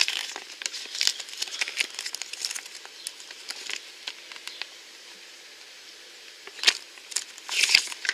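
Paper checklist leaflet rustling and crinkling as it is handled and its folded pages are turned: a run of small crackles over the first few seconds, then two louder rustles near the end.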